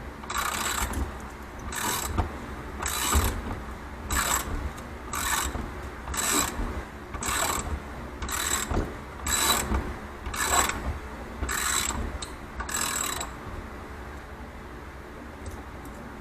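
Motorcycle spring compressor being cranked down on an ATV coil-over shock spring: about a dozen even ratcheting strokes, roughly one a second, that stop a few seconds before the end.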